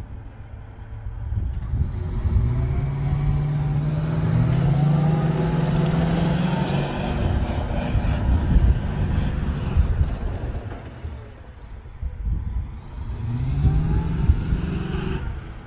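Armored Multi-Purpose Vehicle, a tracked armored carrier, driving with its diesel engine pulling up in pitch as it accelerates, twice: over the first half and again near the end, over the rumble of its tracks.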